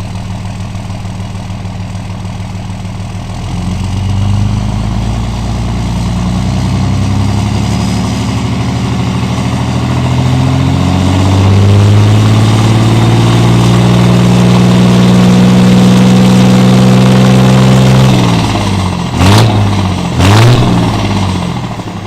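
Cummins turbodiesel truck engine heard from inside the cab, running on the stock intake. It idles, then pulls away and accelerates, its note climbing for several seconds and then holding steady under load. Near the end the note drops, and two loud short bursts of noise come through.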